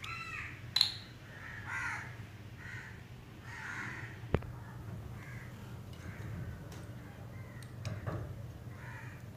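Crows cawing over and over in the background, with a steady low hum and a single sharp click about four seconds in.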